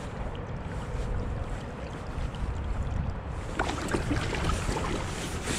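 Steady low rumble of wind on the microphone over moving river water, with a few faint ticks about two-thirds of the way through.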